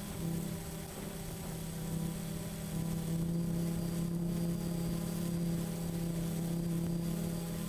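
DJI Phantom FC40 quadcopter's motors and propellers humming steadily, heard from the camera on board the flying drone, over a faint hiss.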